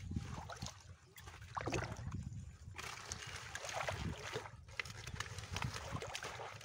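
Wet water hyacinth leaves and stems rustling and crackling as they are pulled by hand out of a net, with water trickling and splashing off the roots.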